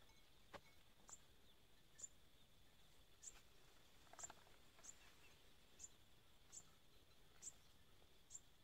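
Faint outdoor wildlife: short, high chirps repeating about once a second over a faint, steady, high-pitched insect drone.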